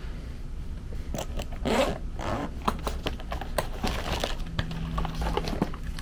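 Hands rustling and scraping as multimeter test leads and tools are picked up and handled, with a run of irregular clicks, scrapes and short rustles from about a second in, over a low steady hum.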